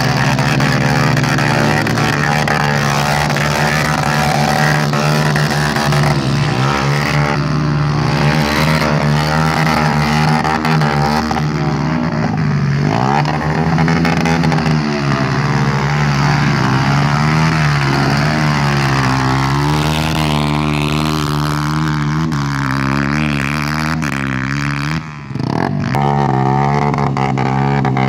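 Small dirt bike engine revving up and down as its rear wheel spins, the bike stuck in deep mud. The engine briefly dies down near the end, then picks up again.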